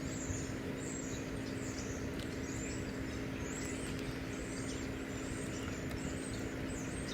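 Outdoor ambience: a steady low hum and background noise, with short, high, falling chirps repeated over and over.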